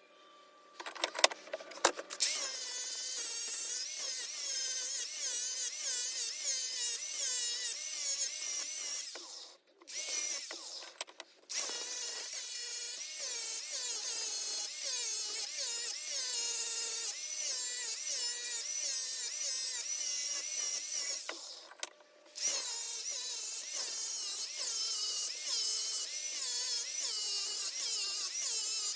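Small high-speed power tool running, its pitch wavering up and down about twice a second as it bears on and eases off the work. It stops briefly twice, and there are a few sharp clicks near the start.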